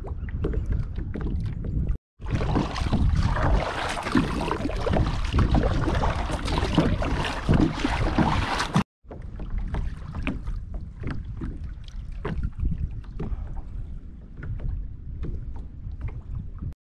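Kayak moving over a choppy lake: water splashing and sloshing against the hull and paddle, with wind buffeting the microphone. The sound is loudest through the middle stretch and drops out sharply for a moment twice, about two seconds in and about nine seconds in.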